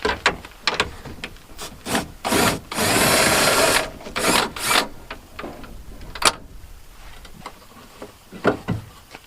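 Power drill/driver running in several short bursts, the longest about a second, to take out mirror mounting bolts, with clicks and knocks of tool handling between the bursts.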